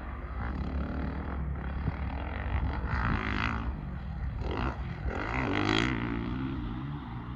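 Motocross bike engine revving up and down as the rider works the track, its pitch rising and falling, loudest about three seconds in and again about five to six seconds in.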